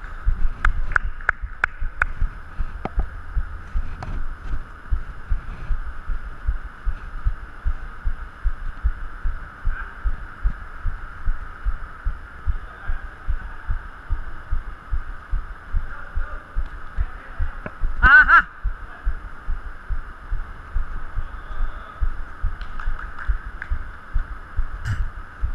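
Low, rhythmic thudding about three times a second, typical of a player's footfalls carried through a body-worn microphone, over a steady hum. A few sharp clicks come in the first two seconds, and a man shouts once about 18 seconds in.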